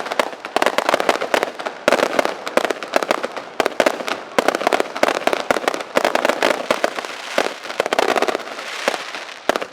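Aerial fireworks display: a rapid, unbroken barrage of sharp bangs and crackles, with a hissing crackle taking over briefly near the end.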